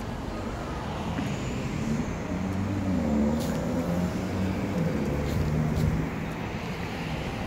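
A car driving past on the street, its engine and tyre noise swelling through the middle and easing off near the end.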